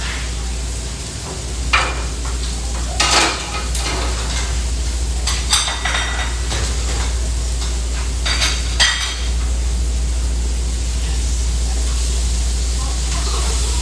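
Metal pans and utensils clattering on a restaurant grill line, with a handful of sharp clinks and scrapes in the first nine seconds, over food sizzling on the griddle and a steady low hum.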